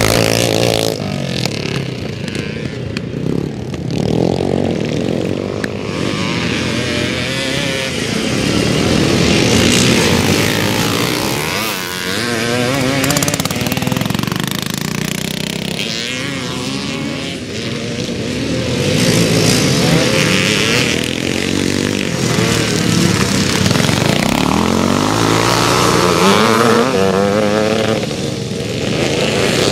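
Vintage twinshock motocross bikes racing, their engines revving up and down continuously, the pitch rising and falling again and again as they accelerate, shift and pass.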